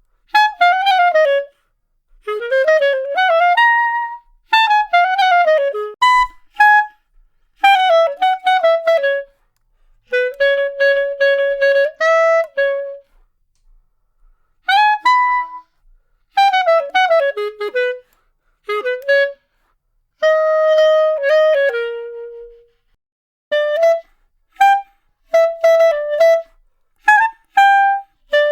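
Solo clarinet playing a string of short phrases separated by brief silences: quick falling runs, a few held notes, then short detached notes near the end.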